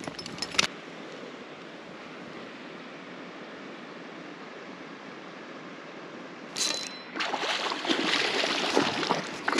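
Steady background hiss, then from about six and a half seconds in a hooked trout splashing and thrashing at the surface of the creek pool, irregular and louder than the hiss.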